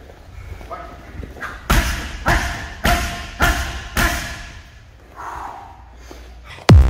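Five Muay Thai kicks landing on a hand-held kick pad in quick succession, about 0.6 s apart, each a sharp, loud thump, with a few lighter hits around them. Electronic music cuts in right at the end.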